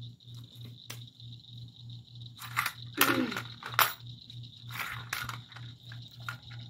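A hooked channel catfish thrashing against gloved hands while being held: several sharp slaps and rustles, the loudest about three seconds in, over a steady high-pitched drone.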